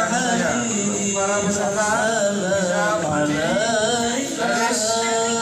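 Men's voices singing a chant-like song, the melody wavering and ornamented, carrying on without a break at a steady level.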